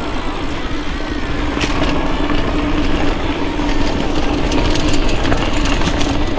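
Bicycle rolling fast down a dirt trail: tyres on the ground and the bike rattling and clicking over bumps, with a steady hum and heavy wind rumble on the action camera's microphone.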